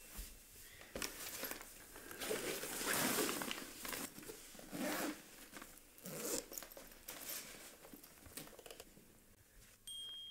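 A backpack zipper pulled in several short runs, with fabric rustling as a lunch bag is packed into the backpack.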